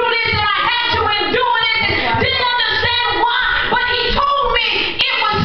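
A woman singing through a handheld microphone and the church sound system, with a steady held note underneath.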